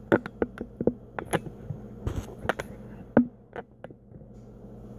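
A quick, irregular run of sharp clicks and knocks that dies out near the end, over a steady low hum.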